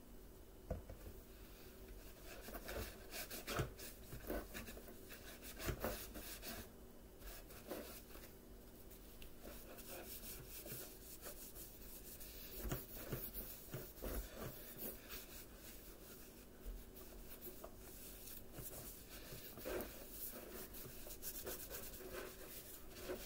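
A pad wetted with rubbing alcohol rubbed back and forth over the plastic hood of a Bissell Powerforce vacuum, a faint irregular scrubbing with a few sharper knocks in the first few seconds, buffing scratches out of the plastic.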